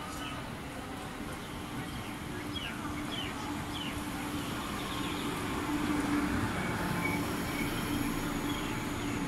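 Electric commuter train pulling into a station platform. Its running noise and a steady hum grow louder as it comes alongside and slows.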